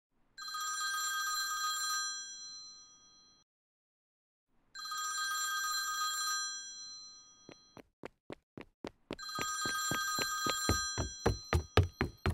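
Old-style telephone bell ringing in repeated rings of about two seconds each with a short fading tail: two rings with pauses, then a third starting about nine seconds in. From about seven and a half seconds, a run of short thuds comes in, getting faster and louder.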